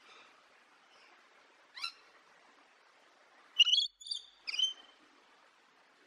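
Cartoon chipmunk-style laugh: a short, high-pitched chuckle of three quick squeaky notes about three and a half seconds in, after a single fainter squeak near two seconds, over a faint steady hiss.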